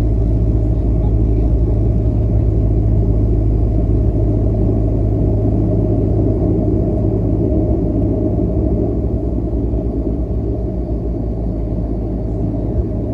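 Turboprop engines and propellers of a Dash 8 Q300 running steadily, heard from inside the cabin as a loud, even low hum. The noise eases a little over the second half.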